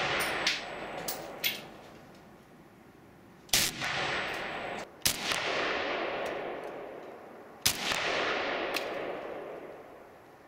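Dragunov SVD sniper rifle firing 7.62×54R rounds: three sharp shots, about a second and a half and then two and a half seconds apart, each followed by a long echo that dies away over two to three seconds. The first seconds hold the fading echo of the shot before, with a few faint sharp ticks.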